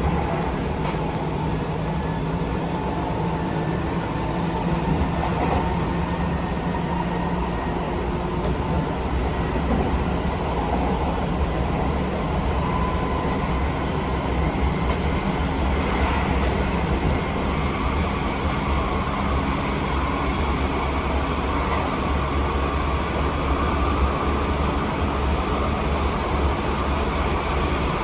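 Seibu 20000 series electric train running between stations: a steady rumble of wheels on rail, with the level hum and whine of its Hitachi IGBT-VVVF traction equipment.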